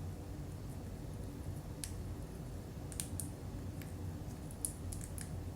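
Low steady room hum with a handful of faint, light clicks scattered through the second half.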